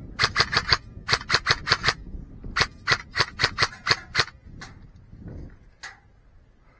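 Airsoft gun shots in three quick strings of sharp cracks, about six shots a second.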